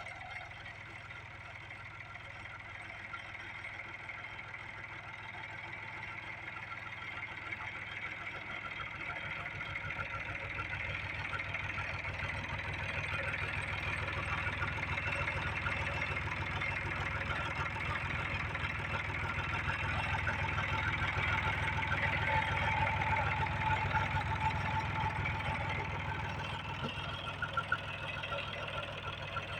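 Landini Blizzard 50's three-cylinder Perkins diesel engine running at idle with a steady firing rhythm, growing louder over the first half and then holding.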